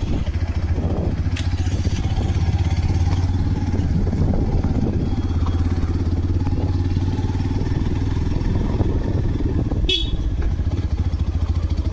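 Motorcycle engine running steadily while riding, a continuous low drone. About ten seconds in there is one brief sharp high-pitched sound.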